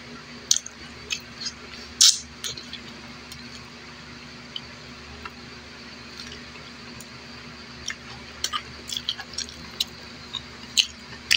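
Wet, sticky eating sounds from eating rice and vegetables by hand: scattered short squishes and smacking clicks, a cluster in the first couple of seconds, a near-pause in the middle, then a denser run in the second half.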